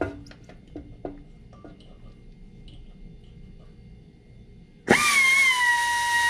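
A few light clicks and taps, then about five seconds in an electric drill starts suddenly and runs with a steady high whine, drilling into a broken-off bolt and bit.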